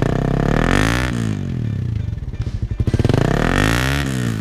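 Suzuki Raider 150 carburetted single-cylinder engine, fitted with a gutted (kalkal) rat-look exhaust, revved up and back down twice. The exhaust has a crisp (malutong) note that puzzles the owner.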